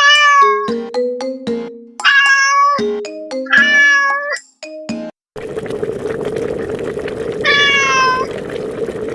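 A cat meowing four times in long, drawn-out calls over music with short plucked notes and clicks. After about five seconds the music gives way to a steady hiss with a low hum under it, and the last meow sounds over that.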